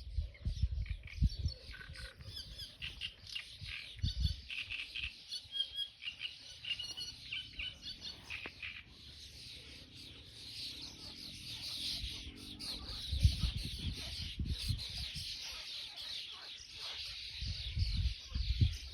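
Songbirds chirping and calling, with quick separate chirps in the first half, then a dense, continuous high chatter. Irregular low rumbles break in a few times.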